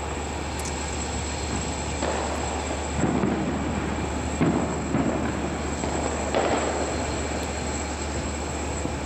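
A train running on the rails: a steady rumble over a low hum, with several louder thumps between about three and seven seconds in.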